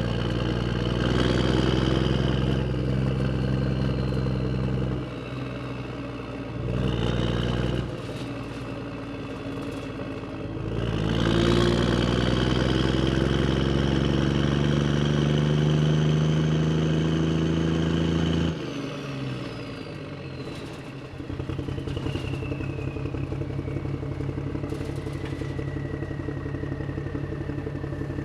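Motor vehicle engine running and revving in surges, then accelerating with a rising pitch for several seconds before it drops off suddenly. It then settles into a quieter, rhythmic idle.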